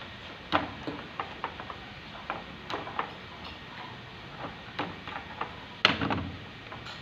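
Irregular small clicks and knocks of hands working on washing-machine wiring and connectors, with a heavier knock about six seconds in.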